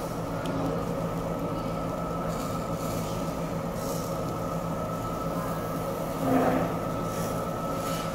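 Steady mechanical hum of a barbecue table's overhead exhaust hood fan, with one brief louder sound about six and a half seconds in.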